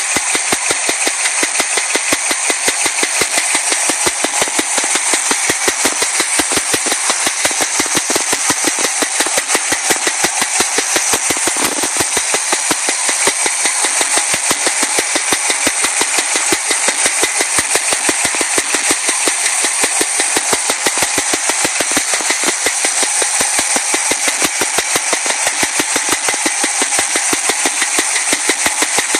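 Chevy Nova engine running steadily with a rapid, regular knock, which the owner suspects is a stuck lifter.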